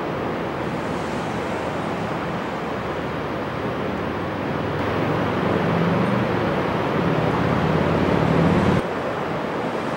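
Steady rush of ocean surf with wind on the microphone. From about five seconds in it grows louder, with a low steady hum underneath, and this cuts off suddenly just before the end.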